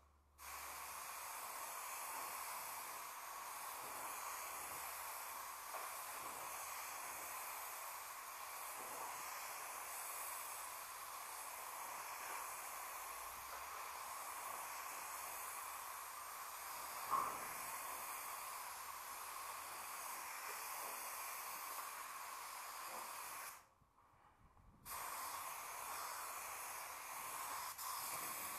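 A steady hiss that cuts off about 23 seconds in and starts again a second and a half later, with one short sharp tick partway through.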